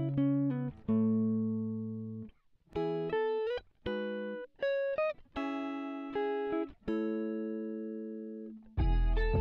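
Music: a plucked guitar melody of single notes that each ring and fade. Near the end a fuller, louder passage with deep bass comes in.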